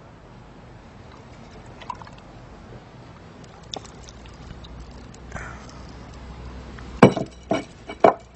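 Low steady background hiss with a few faint clicks. Near the end come three loud knocks about half a second apart, as things on a tabletop cluttered with bottles and cans are struck and knocked about.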